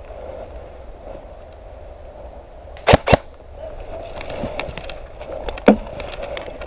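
Airsoft rifle shots: two sharp, loud cracks about a quarter second apart about three seconds in, and another single crack later, with lighter clicks in between.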